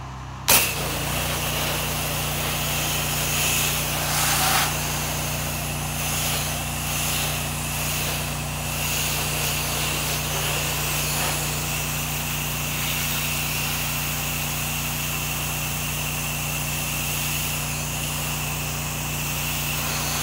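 Pressure washer running: a steady engine hum under the hiss of the spray wand, which opens with a sharp click about half a second in. The wand is spraying house-wash solution drawn through a downstream injector.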